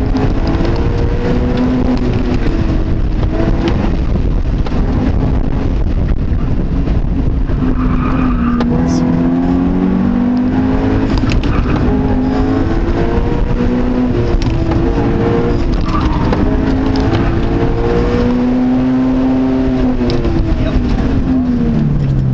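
Modified Subaru BRZ's flat-four engine, heard from inside the cabin, revving high under hard driving, its pitch rising and falling with throttle and cornering. Near the end the revs drop and the pitch falls as the car slows.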